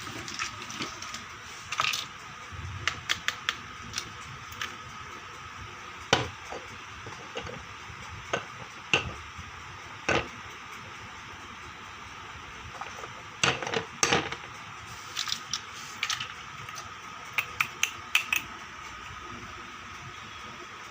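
Small toy kitchen pieces being handled and set down: light clicks, taps and clatters, scattered and sometimes in quick clusters, over a faint steady background hum.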